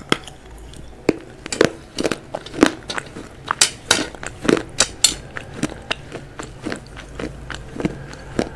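Close-up biting, crunching and chewing of crispy fried chicken, with a run of sharp, irregular crunches.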